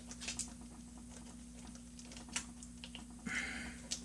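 Faint scattered clicks and taps of small plastic laptop parts being handled, with a short scrape about three seconds in as a plastic pry tool works the inverter board loose from its adhesive.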